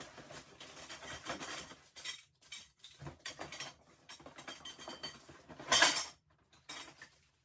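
Parts of an unassembled shoe rack kit being handled and packed away: pieces clinking and rattling against each other, with one loud clatter near the end.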